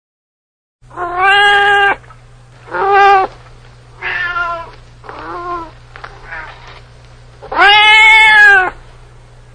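Domestic cat meowing repeatedly, about six calls starting a second in, the last one long and the loudest.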